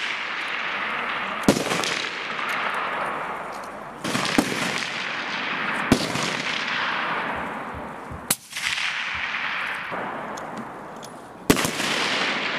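Sniper rifles firing on an open range: about five sharp shots a few seconds apart, each followed by a long rolling echo that fades over a couple of seconds.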